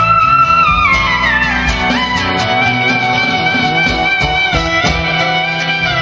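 Live Turkish instrumental music: a clarinet holds a high note, then steps down in a run about a second in, over plucked kanun strings and a drum kit.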